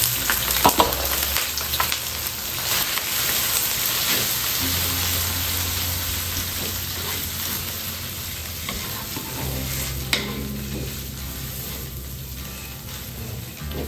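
Chicken intestines frying in hot oil with sautéed aromatics: a loud sizzle that begins as they go into the pan, with the clicks and scrapes of stirring in the first couple of seconds, then settles to a steadier, gradually softer sizzle.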